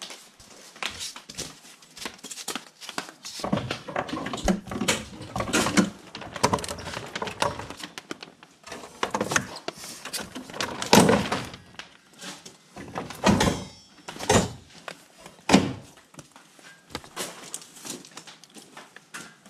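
Foam ICF blocks and rebar being handled and set in place: irregular knocks and thunks with rubbing and scraping of foam, the loudest knocks about halfway through and a few seconds later.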